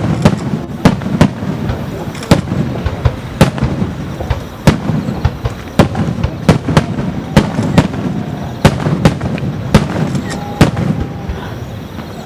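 Fireworks bursting in quick, irregular succession: a dozen or more sharp bangs, some close together, over a steady low rumble.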